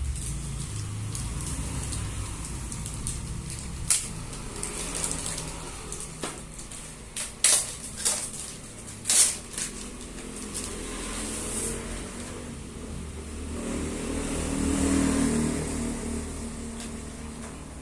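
Laptop packaging being handled: a scattering of sharp clicks and knocks, the loudest two in the middle, over a low vehicle rumble.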